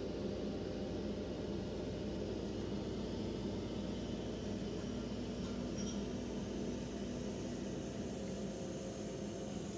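Tractor towing a Schmidt trailer street sweeper, its diesel engine and sweeper machinery running with a steady hum as it sweeps up grit sand from the road.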